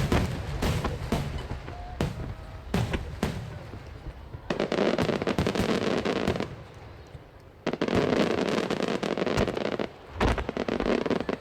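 Barrage of large aerial firework shells (12-inch shakudama) bursting with dry, sharp bangs: several separate bangs in the first few seconds, then three long stretches of dense crackling.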